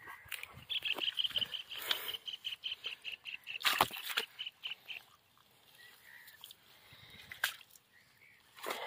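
An animal calling a quick run of high, evenly spaced notes, about five a second, for about four seconds. Under it are rustling and scattered knocks, the loudest a sharp knock in the middle, as fish are handled in a nylon net on wet grass.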